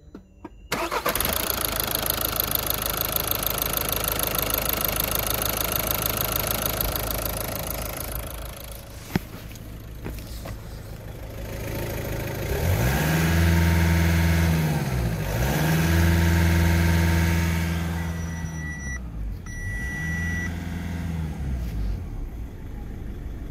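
VW Golf 6's 1.6 TDI (CAY) common-rail four-cylinder diesel engine starting about a second in and running steadily, then revved up and down several times. Two short high beeps sound near the end.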